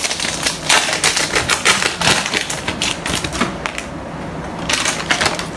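Pokémon trading cards and their torn foil pack being handled: quick runs of crisp clicks and rustling as the cards are slid and flicked through in the hand, in two spells, the second shortly before the end.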